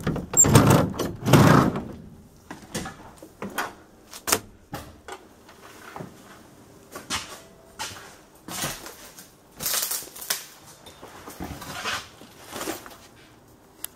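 Knocks and clicks of a ZiU-682V trolleybus door being handled and someone climbing into the cabin: a few loud thuds in the first two seconds, then scattered lighter knocks and clicks.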